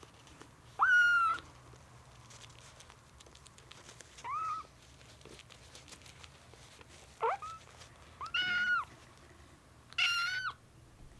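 A young kitten mewing: about five short, high-pitched mews, the first and last the loudest.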